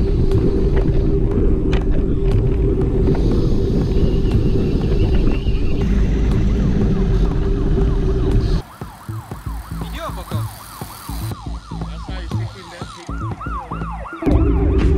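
Wind buffeting a camera moving along with bicycles, a heavy low rumble. A little past the middle the rumble drops away and a quickly repeating rising-and-falling wail comes through for several seconds. The rumble returns near the end.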